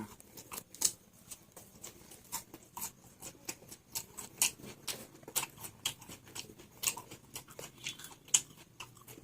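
A person chewing vada and raw salad, heard as irregular crisp crunches and clicks.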